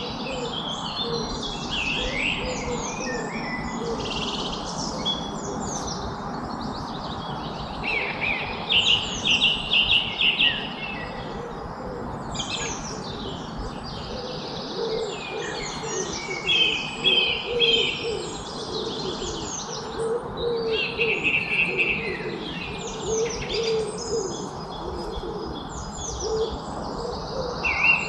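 Several songbirds chirping and trilling together in a dense chorus, over a low call repeated again and again, with a steady background hiss.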